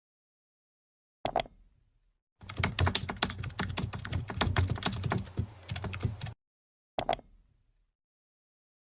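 Computer keyboard typing, a quick run of key clicks lasting about four seconds, with a single sharp click shortly before it and another shortly after.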